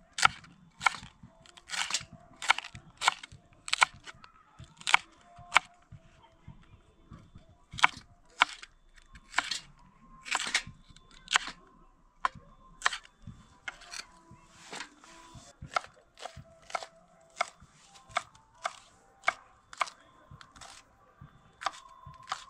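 A kitchen knife chopping green chili peppers on a wooden cutting board: sharp knocks of the blade hitting the board, roughly one or two a second, with a short pause about six seconds in.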